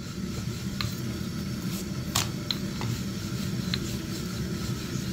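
Wooden rolling pin rolling out a potato-stuffed paratha on a floured board: a steady low rolling rumble with a few light clicks.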